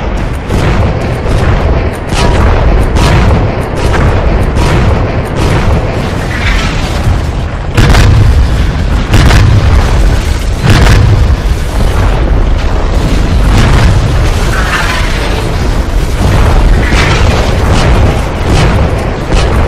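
Loud battle sound effects: a rapid string of explosion booms over a heavy low rumble, with music underneath.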